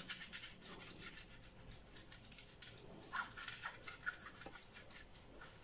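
Faint rubbing of a brush spreading oil over a metal oven tray, in soft repeated strokes.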